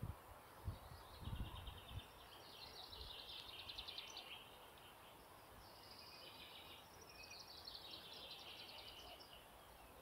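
A songbird singing two long songs, each a few seconds of rapid, high repeated-note trills. A few dull low thumps come in the first two seconds.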